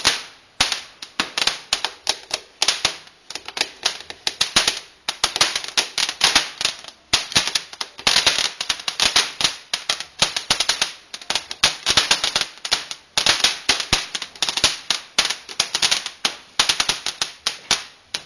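Firework crackling: a rapid, irregular run of sharp pops, several a second, without a break.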